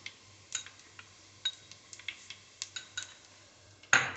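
Mustard and cumin seeds spluttering in hot groundnut oil in a steel pot: scattered, irregular sharp pops and ticks, some with a faint metallic ring, over a faint sizzle. Near the end comes a louder clatter of a spoon against a bowl.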